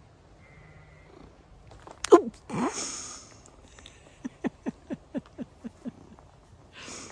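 Tabby cat meowing: one loud meow about two seconds in, then a quick run of about eight short mews, each falling in pitch, about four a second.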